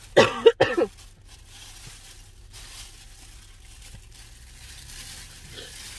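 A short vocal sound in the first second, then faint rustling and crumpling of a paper napkin over a low steady hum.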